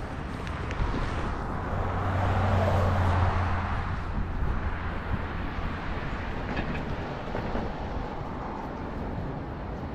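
A motor vehicle passing over outdoor background noise: a low engine hum and a rush that swell to a peak about three seconds in, then fade.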